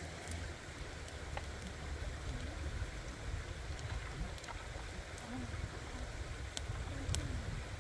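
Shallow stream running over rocks, a steady watery rush with a low rumble, broken by a few scattered sharp clicks.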